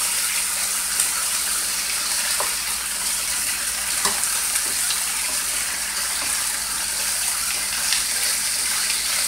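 Boneless beef short ribs and onions sizzling steadily in hot oil in a skillet while they brown, with a few faint taps as the pieces are moved around the pan.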